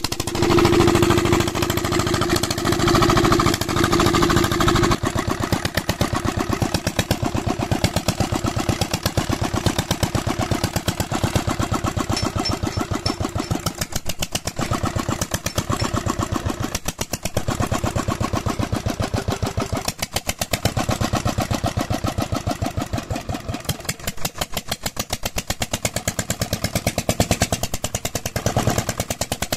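About 60-year-old single-cylinder Petter diesel engine running, its exhaust giving rapid, even beats. It is louder, with a steady hum over the beats, for the first five seconds, then settles a little, its loudness rising and falling slightly.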